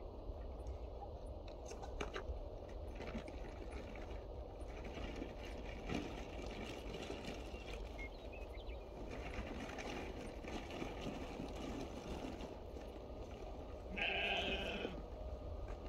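Small livestock bleating once, a loud call of about a second near the end. A steady low rumble and a few faint knocks sit underneath.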